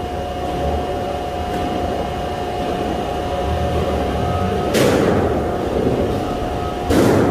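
Steady hum of sheet-metal shop machinery with a thin constant whine, broken twice by short loud bursts of noise about five and seven seconds in.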